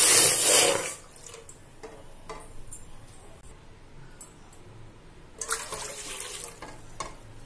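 Water poured from a steel tumbler into a large metal pot, splashing on the pot's bottom: a loud pour in the first second, then a second pour about five and a half seconds in, two glasses of water for boiling rice.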